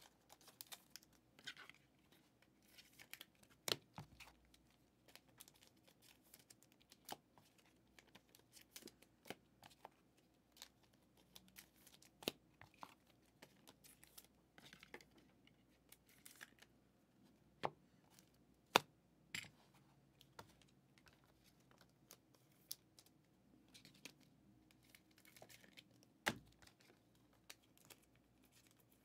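Trading cards and plastic card sleeves being handled: faint scattered clicks and soft rustles, with a few sharper taps now and then.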